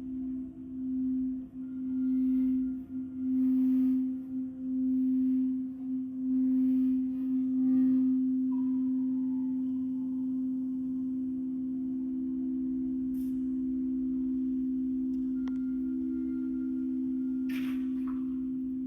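Singing bowls ringing with two steady tones, swelling and fading in a wobbling pulse for the first several seconds, then sustaining evenly. A brief soft rush of noise near the end.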